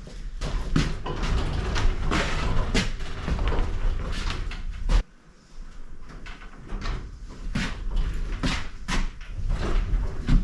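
A Harbor Freight tool box being handled: a string of clunks, knocks and rattles as its drawers and body are moved, with one sharp knock about five seconds in.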